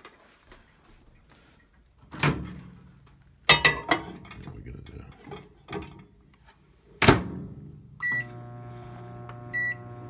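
Knocks and clicks as a microwave door is opened and a glass cup of water set inside, then the door shut with a loud thunk about seven seconds in. A keypad beep follows, the microwave starts running with a steady hum, and a second beep sounds over the hum.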